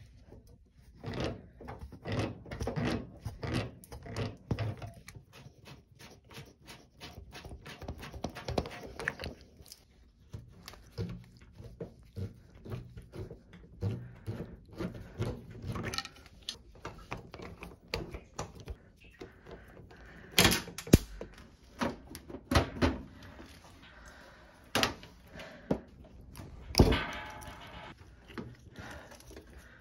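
Ratchet wrench clicking in quick strokes on the screw that holds the washer's water inlet valve to the cabinet, then scattered knocks and clunks of the valve and fittings being handled. The loudest knocks come about two-thirds of the way through and again near the end.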